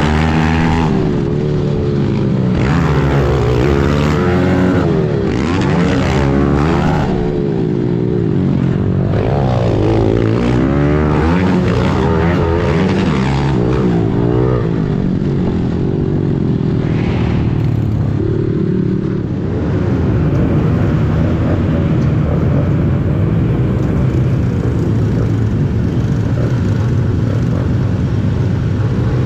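Pit bike engine revving up and down hard through the gears on a lap of a dirt track. About two-thirds of the way in it settles to a steady idle.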